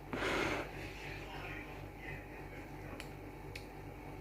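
A person tasting pasta: a short rush of breath-like noise at the start, then faint eating sounds with a couple of light clicks over a low steady hum.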